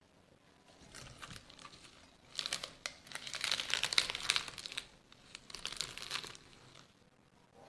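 Hands crumpling and tearing fresh coriander leaves. The crinkling comes in bursts: a long one from about two and a half to five seconds in, and a shorter one near six seconds.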